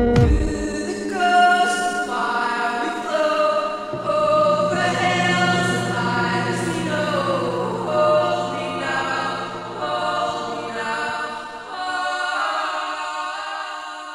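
Background music: a song with layered, sustained vocals, fading out at the end.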